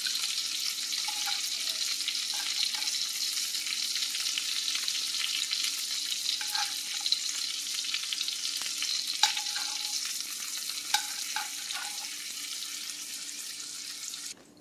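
Chicken, peppers and onions sizzling steadily in a skillet with the burner just turned off, with a few light clicks of metal tongs as the pieces are lifted out. The sizzle cuts off just before the end.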